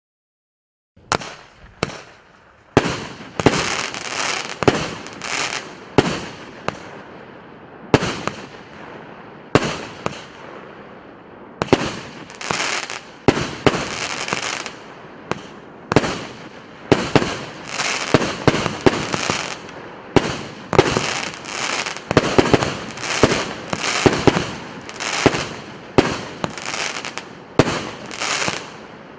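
A 37-shot, 1.2-inch consumer firework cake firing. Its tubes go off in a fast series of sharp bangs, roughly one or two a second, starting about a second in. Each bang trails off in a fading hiss.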